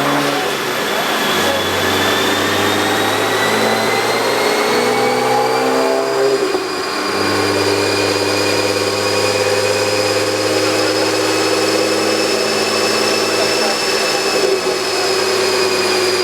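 BMW 335is twin-turbo inline-six run hard on a chassis dyno. Its pitch climbs over the first six seconds, drops sharply about six and a half seconds in, then holds high and steady, with a thin high whine rising alongside.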